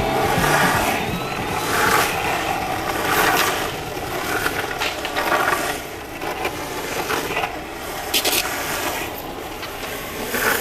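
Skateboard rolling fast downhill on asphalt: a steady rough rolling noise with louder scraping surges every second or so.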